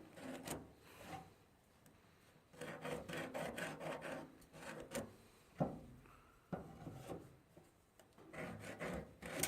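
Pallet-wood offcuts being handled on the bench: wood rubbing and scraping in short irregular stretches, with two sharp knocks in the middle.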